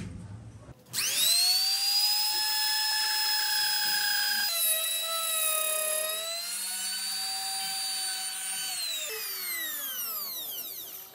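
Compact trim router switched on, spinning up into a high steady whine. The pitch sags for a couple of seconds as the bit is loaded cutting into a wooden block, then recovers. Near the end the motor is switched off and winds down, its whine falling in pitch.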